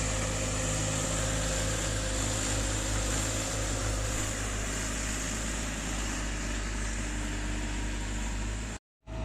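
Heavy diesel machinery engine running steadily with a low, even hum, cutting out abruptly for a split second near the end.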